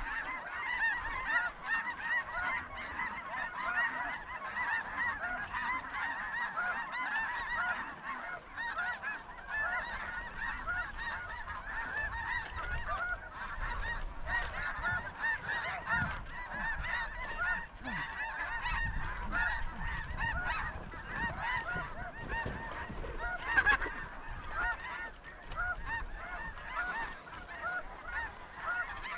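Huge flocks of snow geese calling all at once overhead: a dense, unbroken chorus of overlapping high honks.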